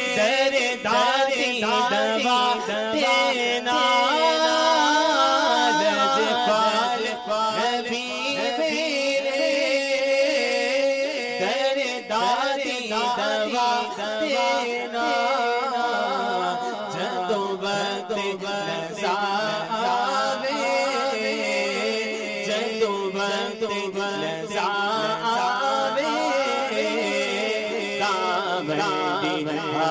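A cappella Punjabi naat sung by male voices: a lead voice sings long, ornamented melodic phrases while a second male voice holds a steady backing note beneath.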